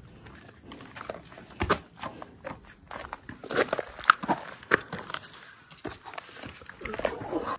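Footsteps of a hiker scrambling over rock and gravel in a steep canyon: irregular scuffs and crunches, a couple to a few a second, with a busier cluster about halfway through.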